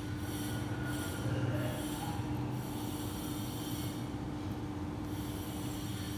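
Steady mechanical hum with one constant mid-low tone over a low rumble and faint hiss, unchanging throughout.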